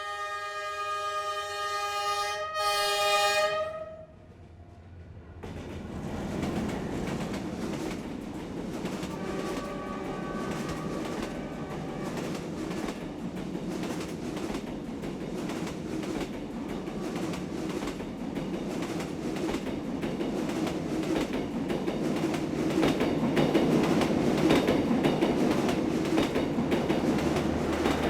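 Train horn sounding two blasts, a long one and then a shorter one. After a short lull, a train runs with a steady rumble and a rhythmic clickety-clack of wheels over the rails, getting louder toward the end.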